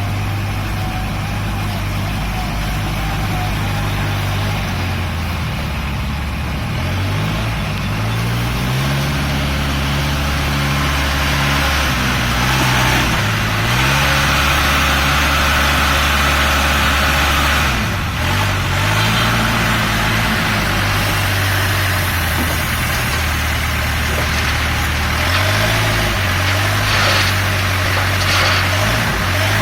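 Case N Series backhoe loader's diesel engine idling steadily, then revving up and dropping back several times as the machine works.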